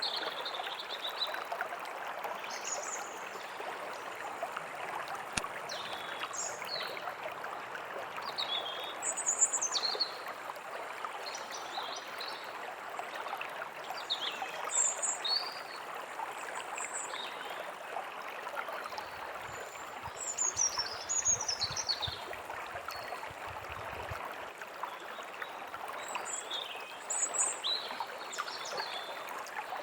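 A stream running steadily, with birds chirping and calling in short, scattered phrases over it.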